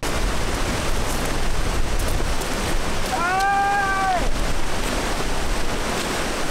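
Steady rushing of wind and surf, with low rumble from wind on the microphone, starting abruptly. About three seconds in comes a single drawn-out pitched call lasting about a second, dropping at its end.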